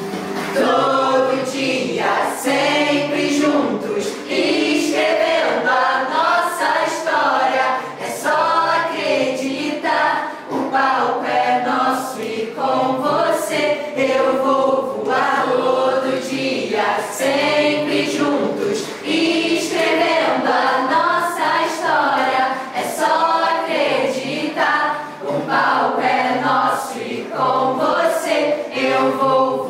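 A mixed group of young men and women singing a song together, over a steady beat of sharp taps about once a second.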